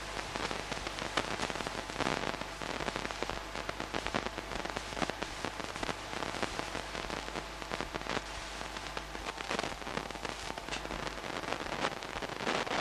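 Dense, irregular crackle over a steady hiss, with a constant low hum underneath: the surface noise of an old film's sound transfer rather than any sound from the scene.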